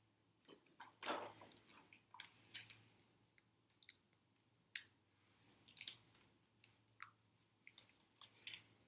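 Faint, scattered clicks and lip smacks from a silent signer's mouth, with soft rustles of hand and clothing movement, one of them a picture-book page being turned about a second in.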